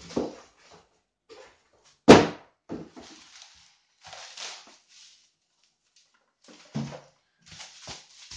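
Bubble-wrapped model-aircraft parts being handled and set down on a table, a run of short plastic rustles and knocks, with one sharp thud about two seconds in that is the loudest sound.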